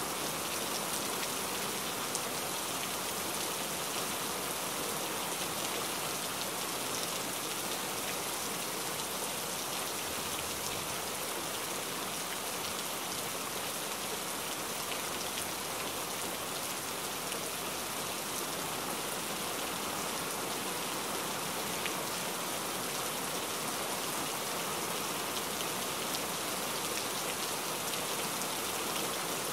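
A steady, even hiss like falling rain, with faint scattered ticks.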